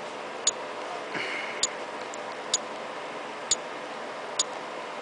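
iPhone 3GS on-screen keyboard key-click sounds as a password is typed slowly, one sharp tick about every second, not quite evenly spaced, over a faint steady hiss.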